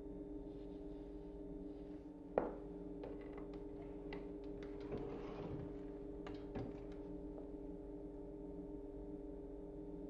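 Handling noise from a dishwasher's plastic tub and wire racks: one sharp knock about two and a half seconds in, then a few seconds of light clicks and rattles with a second knock, over a steady low hum.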